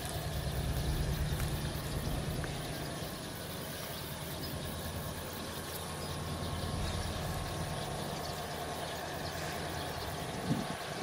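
Low, steady diesel rumble of two CC 205 diesel-electric locomotives pulling a long coal train away from the station. It swells over the first second or two, then holds. A brief knock is heard near the end.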